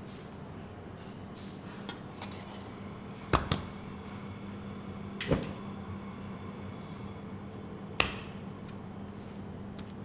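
Kitchen work: a handful of sharp knocks and clatters, two close together about a third of the way in, then single ones in the middle and near the end, over a steady low hum.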